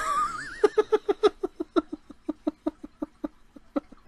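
A rapid snickering laugh, about five or six short "heh" pulses a second, opening with a brief wavering high squeal.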